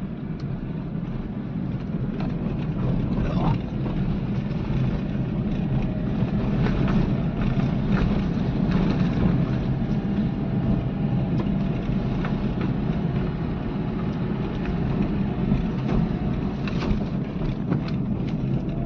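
Inside the cabin of a Renault Triber driving along a narrow paved road: steady engine and tyre rumble.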